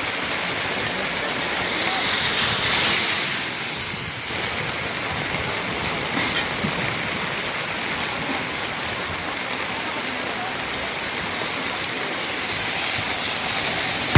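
Steady rushing of floodwater, swelling briefly about two seconds in.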